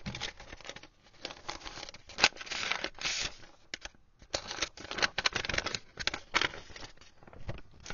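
Paper envelope being torn open and handled by hand: irregular bursts of ripping and crinkling paper, with a longer stretch of tearing about three seconds in.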